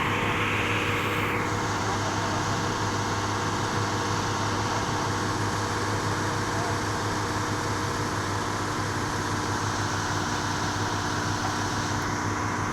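Heavy diesel engine running steadily at a constant speed, with a higher hiss that drops away about a second and a half in.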